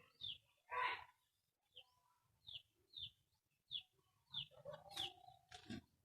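Faint backyard birds: short, high chirps repeated every half second to a second, with a few lower chicken clucks among them.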